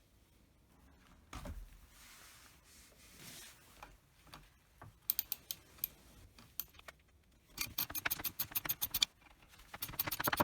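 Hand tools and small metal parts being worked on a STIHL 017 chainsaw during teardown: a dull knock early, then several runs of quick, evenly spaced metallic clicks, about eight a second.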